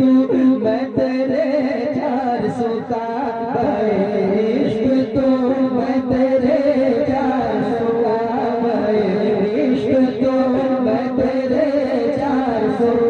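Naat being sung: a wavering, ornamented vocal melody over a steady held drone, with light percussion hits throughout.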